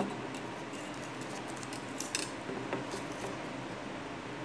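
A roll of masking tape handled while binding foam flowers together: a click at the start, two short crackling tears of tape about two seconds in, then a few light taps as the roll is put down on the table.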